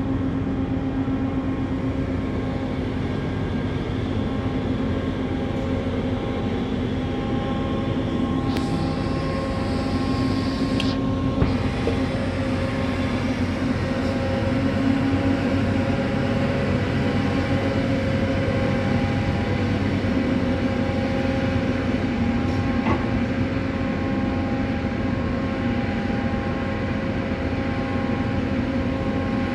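Crane machinery running with a steady hum and several held tones while it lowers a clamshell grab into a grain hold, with a couple of brief higher sweeps around ten seconds in.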